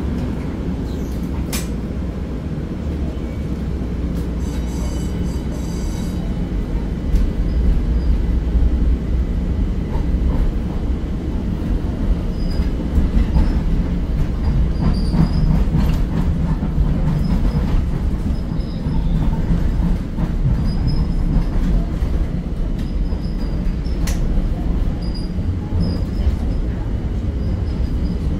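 Light-rail car running, heard from inside: a steady low rumble of the car and its wheels on the track that grows louder after about seven seconds as the train picks up speed. Faint high wheel squeals come and go through the second half, with a couple of sharp clicks.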